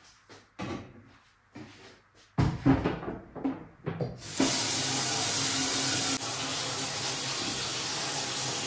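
A few knocks and clatters of things being handled, then water running steadily from a tap from about four seconds in.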